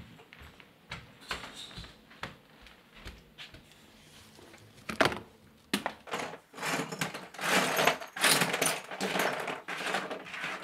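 Plastic toys clattering and rattling against the sides of a large plastic storage tote as a child moves about in it. A few sharp knocks come about halfway through, followed by a busier run of rattling.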